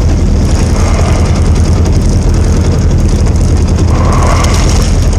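Small outboard motor running steadily at low trolling speed, a loud low drone close to the microphone.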